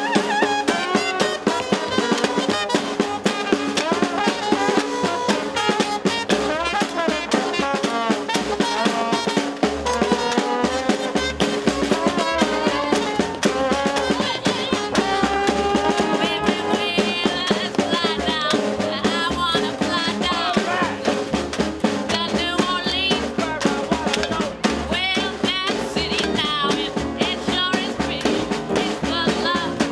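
Live Dixieland-style hot jazz band playing: trumpet and trombone over upright bass and a steady beat on snare drum. The percussion is partly played with kitchen tools, wooden stirring spoons struck on the drum and on a lid.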